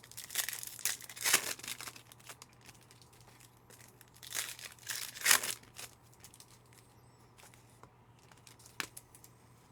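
Foil trading-card pack wrappers being torn open and crinkled by hand, in two bouts: one in the first two seconds, another about four to five and a half seconds in. A single click near the end.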